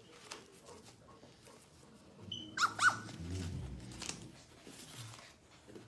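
A puppy gives two quick, high-pitched yelps in a row, about two and a half seconds in, over light rustling of newspaper underfoot.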